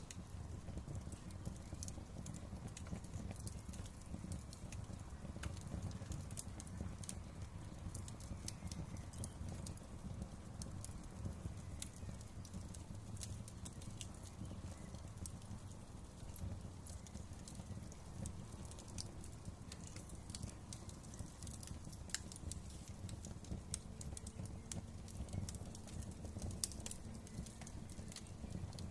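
Fireplace fire crackling: a steady low rumble of flames with frequent sharp pops and snaps, which come thicker toward the end.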